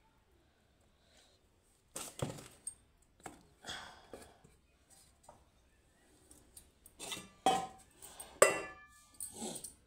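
Stainless steel kitchen utensils (a small container, its lid and a pot) clinking and clattering against each other several times, the loudest knock near the end giving a brief metallic ring.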